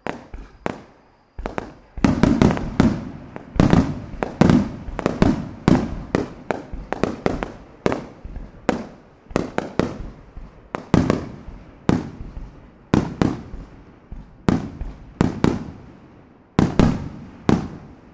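Aerial fireworks shells bursting in quick succession: a dense run of sharp bangs, each trailing off in echo. A few bangs come first, then a steady barrage from about two seconds in, thinning out near the end.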